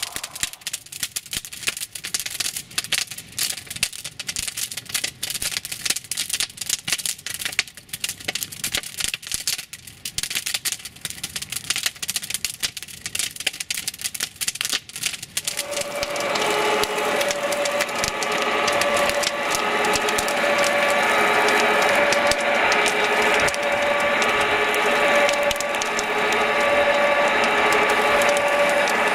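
Irregular crackling from flames burning a small wooden model hut. About halfway through, a model fire engine's two-tone siren starts, switching between a high and a low note with a full cycle of a little over a second, and it becomes the loudest sound.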